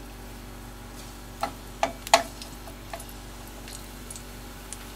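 Metal spatula clicking and tapping against a frying pan a handful of times, clustered between about one and a half and three seconds in, as garlic is stirred in hot oil.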